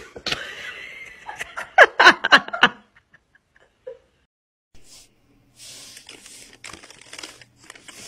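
A burst of laughter, a quick run of 'ha-ha' pulses in the first three seconds. From about halfway on there is a soft hissy rustle with scattered light clicks.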